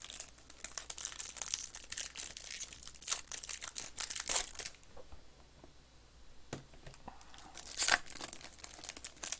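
Trading-card pack wrapper crinkling and tearing as a pack is opened and the cards handled: a dense run of crackles for the first half, a quieter spell, then one short loud crinkle near the end.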